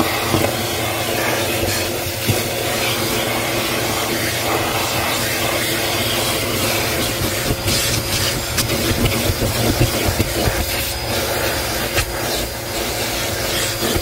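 Bissell Helix vacuum running steadily through its crevice tool as it sucks wood chips off car floor carpet, the chips crackling and rattling up the tool and hose. The tool's tip rubs and clicks over the carpet pile.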